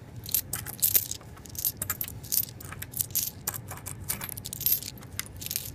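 Loose Lincoln cents, mostly copper-plated zinc, clicking and clinking against one another as a hand pushes and sorts them on a paper towel. The light clinks come irregularly throughout.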